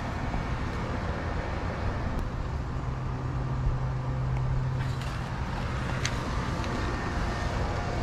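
A 2001 Trane Voyager commercial air conditioner running: a steady rush of fan air with a low hum that swells for a couple of seconds in the middle.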